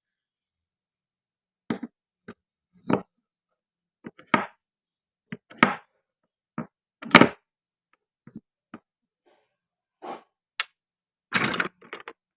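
Toy kitchen cutting: a toy knife and hard toy fruit and vegetable pieces clacking and knocking on a cutting board in short separate strokes, with a longer rattling clatter near the end.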